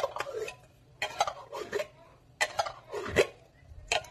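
An upturned metal can of Nestlé cream knocked and tapped to empty the last of the thick cream into a plastic bowl: a string of sharp, irregular knocks, roughly one or two a second.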